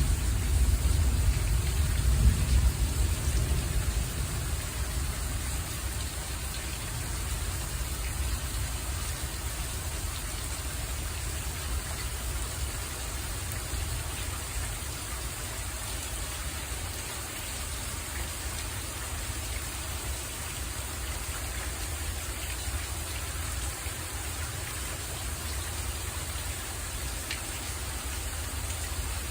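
Steady rain falling, an even hiss with no break. A low rumble of thunder fades out over the first few seconds.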